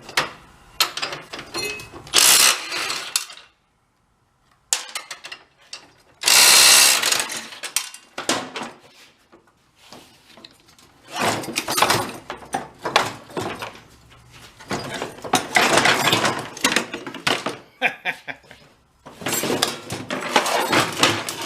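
Socket ratchet wrench clicking in repeated bursts as the engine's mounting bolts are backed out, with occasional metal clanks of tools and parts.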